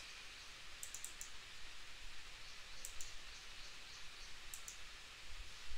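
Computer mouse clicking in short groups: a cluster of clicks about a second in, then double clicks about three and four and a half seconds in, over faint steady hiss.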